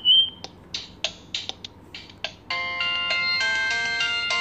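A few keypad clicks on a VGO Tel V2+ feature phone, then from about two and a half seconds in a polyphonic electronic ringtone melody plays loud from the phone's rear loudspeaker.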